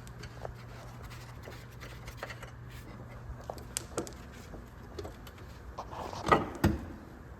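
Light metallic clicks and taps, then two louder metal clunks about half a second apart near the end, as a front strut assembly is worked free and pulled out of the wheel well.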